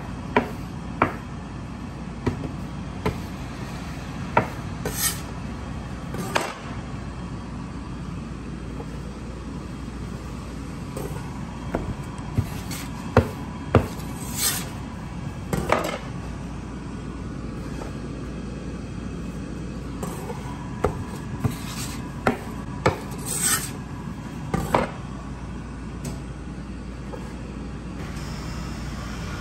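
Chinese cleaver pressing and smearing pineapple-bun topping dough flat on a floured wooden worktable: scattered knocks of the blade on the wood and short scraping strokes, over a steady low hum.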